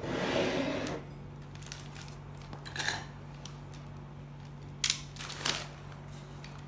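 Newspaper wrapping being crinkled and pulled off a ceramic mug: a loud rustle in the first second, a shorter one about three seconds in, and a few sharp crackles around five seconds in.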